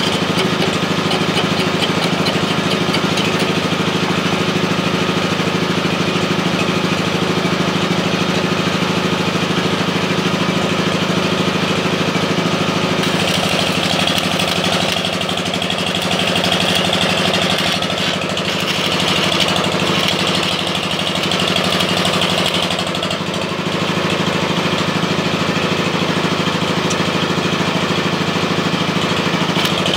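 A small engine running steadily throughout. From about halfway in until about three-quarters through, the crackle of a stick-welding arc on the steel of an excavator bucket rises over it.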